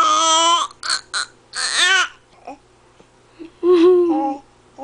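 Baby babbling in loud, high-pitched shouts and squeals: a long shout at the start, two short yelps, a squeal that rises and falls about two seconds in, then after a pause another lower shout near the end.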